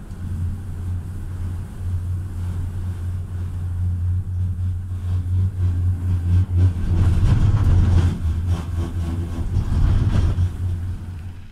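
Gondola lift cabin running along its cable: a steady low hum and rumble inside the cabin, which grows louder and rougher with rattling clicks about seven seconds in as the cabin passes over a lift tower.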